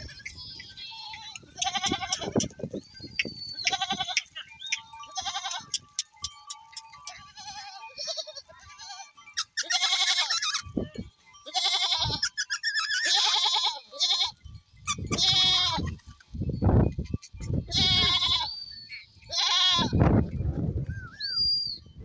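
A herd of goats bleating again and again, many separate calls, some overlapping, each with a quavering, wavering pitch.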